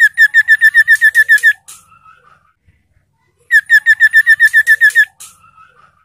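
Caged iora singing: two fast runs of about ten sharp, evenly repeated whistled notes. Each run lasts about a second and a half and ends in a short, quieter, lower warble, and the second run starts about three and a half seconds in.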